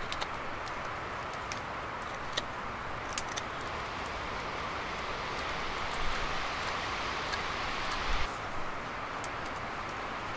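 Knife carving a wooden spoon by hand, scattered small sharp clicks of the blade cutting wood over a steady rushing background noise; the background changes abruptly about eight seconds in.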